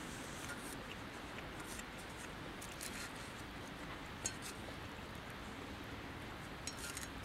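Wooden chopsticks clicking and tapping against a small metal frying pan while eating: a few short, sharp clicks over a quiet, steady hiss. The loudest click comes about four seconds in.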